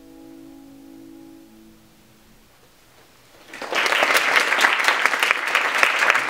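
A grand piano's final chord dying away, then audience applause breaking out about three and a half seconds in and going on to the end.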